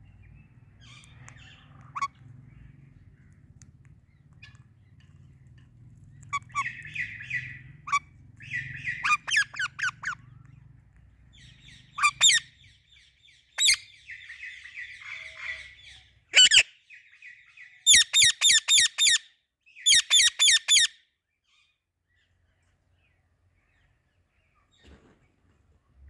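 Indian ringneck and Alexandrine parrots calling: soft chattering broken by loud, shrill screeches. The screeches come in quick runs, the longest about seven in a row.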